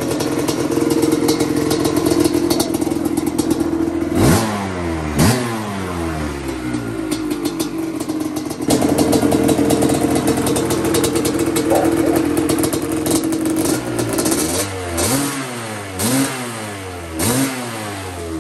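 Yamaha Tri-Z 250's two-stroke single-cylinder engine running at a steady fast idle. The throttle is blipped twice about four seconds in and three more times near the end, and each time the revs rise sharply and fall back.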